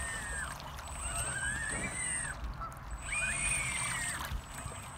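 Twin brushless electric motors of an RC model boat whining, with a thin high electronic whine alongside. A first whine drops away at the start, then two throttle bursts about a second long each rise in pitch and hold before cutting off.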